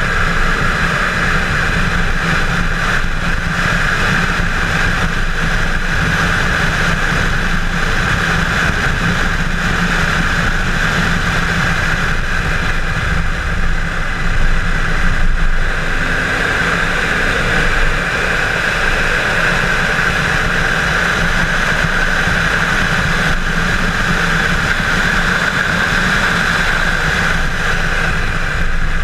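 Chevrolet Camaro 1LE at speed on a road course: the engine running hard under load with a constant rush of wind and road noise, slightly uneven around the middle.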